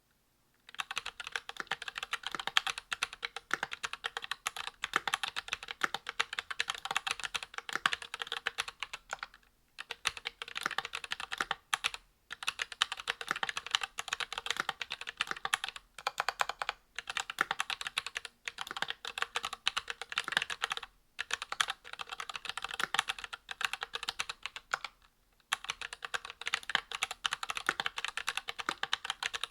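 Fast, continuous typing on a custom mechanical keyboard: a Monstargear XO V2 aluminium case with a brass plate, GMK keycaps and lubed ZealPC Zealios V2 62 g tactile switches. Dense keystroke clacks start about a second in and break for short pauses every few seconds.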